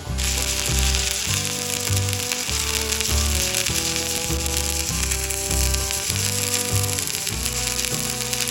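Electric welding arc crackling and sizzling steadily, switching on abruptly, over background music with a steady beat.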